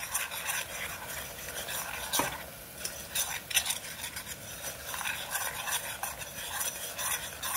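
Stainless steel spoon stirring and scraping around a stainless steel saucepan, with irregular clinks against the metal, over the steady sizzle of bubbling caramelized sugar syrup with vinegar added.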